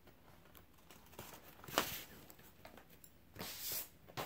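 Handling of a vinyl record's jacket and sleeve: a sharp click about two seconds in, then a brief papery swish near the end.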